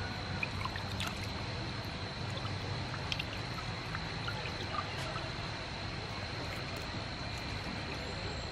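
Hands swishing and squeezing duck ovary and immature yolks in a steel bowl of water: soft sloshing and trickling with small splashes. A faint steady high tone runs behind it.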